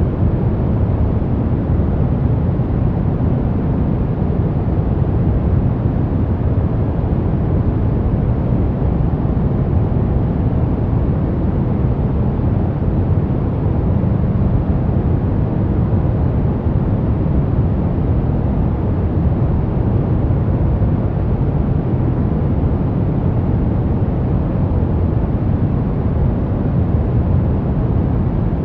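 Steady relaxation noise track, sold as white noise, but with most of its energy low down: an even, deep hiss that never changes.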